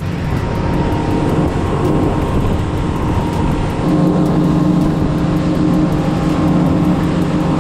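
A 300-horsepower outboard motor runs at speed with a steady engine drone, under the rush of wind and water against the hull. The drone grows a little stronger about halfway in.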